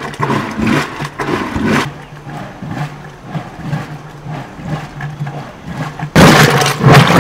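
A wooden pole is worked up and down in a tall wooden stave vessel, making repeated strokes about two to three a second, loudest in the first two seconds. A steady low hum runs underneath, and a loud rushing noise comes in about six seconds in.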